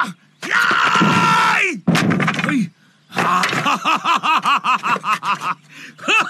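A man's long, strained yell, a sharp wooden whack about two seconds in as the plank strikes, then from about three seconds in loud hearty laughter, about four bursts a second.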